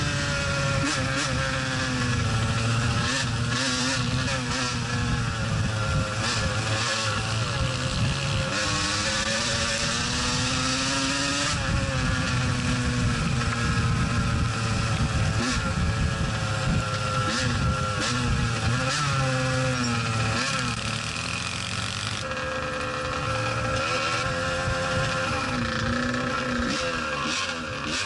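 Two-stroke off-road engine running under way, its pitch rising and falling with the throttle, with wind rushing over the microphone. Toward the end it eases off as the ride slows.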